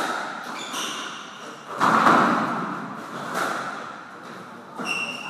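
Squash rally: the ball is struck by rackets and smacks off the court walls in a string of sharp hits, the loudest about two seconds in. Court shoes make short squeaks on the wooden floor about a second in and again near the end.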